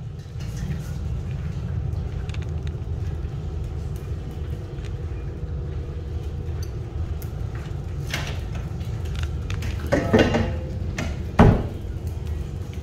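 Rottweiler puppies eating kibble off a tiled floor: scattered small clicks and crunches over the steady low hum of a running electric fan. A louder burst comes about ten seconds in, and a second and a half later a sharp knock, the loudest sound.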